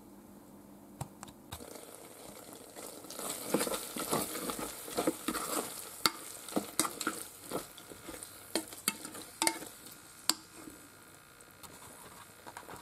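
Thick, creamy elbow macaroni and cheese being stirred with a plastic spatula in a stainless steel pot: wet squelching, with irregular scrapes and clicks as the spatula hits the pot. It starts about a second and a half in.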